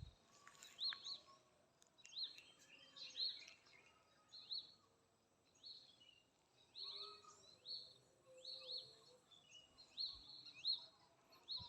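Faint bird calls: short, high, arched chirps repeated about once a second, often two in quick succession.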